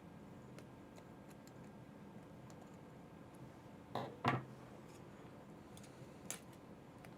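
Light plastic clicks and taps from handling an opened HP 20S calculator and its parts, with two louder clicks in quick succession about four seconds in and another near the end.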